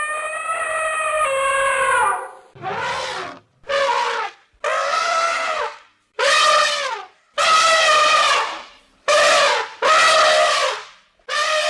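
Elephant trumpeting: a series of about eight brassy calls in quick succession, each half a second to two seconds long, several dropping in pitch as they end.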